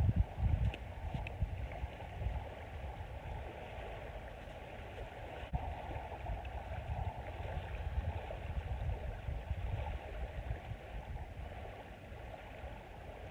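Small surf washing steadily onto a sandy beach, with wind rumbling on the microphone in gusts that are strongest near the start.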